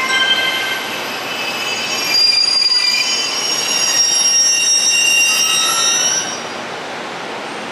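Wheels of the TRAIN SUITE Shiki-shima (JR East E001 series) squealing as the train rolls slowly past the platform: several shrill tones at once, one rising near the end. They stop a little over six seconds in, leaving a steady rushing noise.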